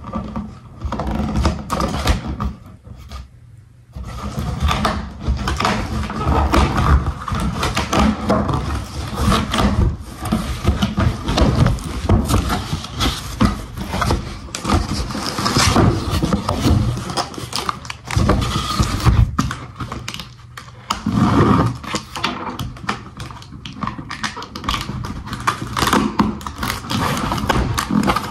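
Packaging and plastic party supplies being handled and unpacked close to the microphone: irregular rustling, clatter and knocks, with a short lull about three seconds in.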